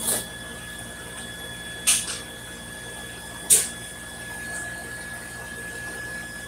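Three brief bursts from a MIG welding arc, short tack welds about two seconds apart, over a steady high-pitched whine and hum of shop equipment.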